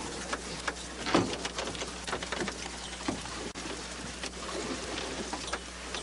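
Rain pattering on the raft, with many scattered sharp drop hits over a steady hiss.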